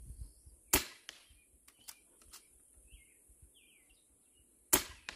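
Two sharp shots from a Hatsan Flash QE .25 PCP air rifle firing slugs, about four seconds apart. It is fed from a tethered air tank at 3,500 PSI. Birds chirp faintly between the shots.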